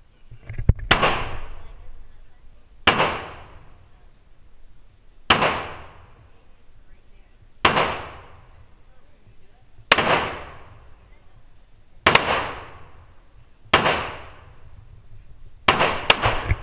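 Gunshots fired one at a time in an indoor shooting range, about every two seconds, each followed by a long echoing tail. Near the end two come in quick succession.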